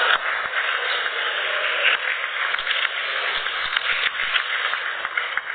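Audience applauding in a large hall, a dense patter of many hands clapping that dies away near the end.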